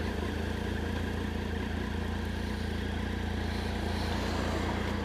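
Triumph Street Triple 675's inline three-cylinder engine running steadily at low revs, close to idle, with no revving or gear changes.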